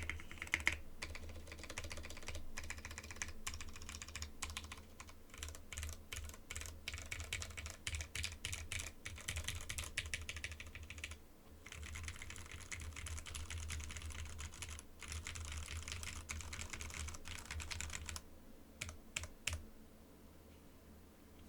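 Typing on a mechanical keyboard with lubed Cherry MX Hyperglide Red linear switches in an aluminium-plate Monstargear X0 K80, pressing the modifier keys: fairly quiet, poppy keystrokes with some scratchiness. Quick runs of presses with a short break about eleven seconds in, then a few single presses before it stops near the end.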